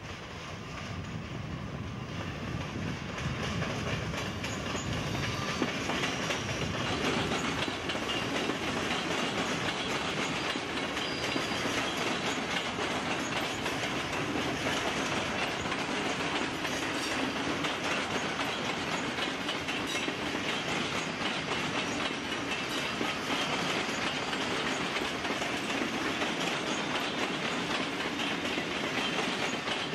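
Netherlands Railways Koploper (ICM) electric multiple unit passing, its wheels clicking steadily over rail joints and points above a continuous running rumble that builds over the first few seconds and then holds.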